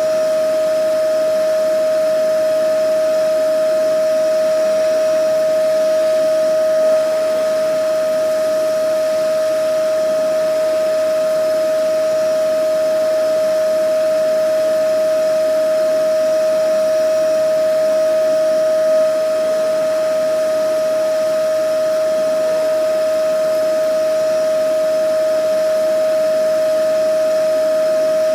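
Vacuum cleaner running steadily: a constant high motor whine over rushing air noise, swelling very slightly twice.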